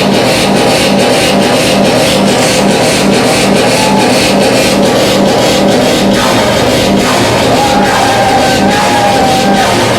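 Loud live rhythmic-noise electronic music: dense, heavily distorted electronic noise over a steady beat of about three hits a second. A wavering high tone comes in about three-quarters of the way through.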